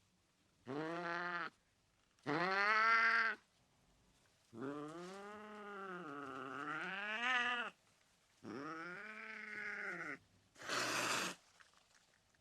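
Angry domestic cat yowling: four drawn-out, wavering threat calls, the third and longest lasting about three seconds with its pitch dipping and rising, followed near the end by a short sharp hiss.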